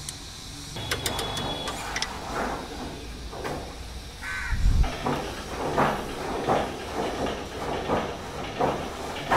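Open-end spanner loosening the mounting bolt of a car horn. In the second half it makes short strokes that repeat a little faster than once a second.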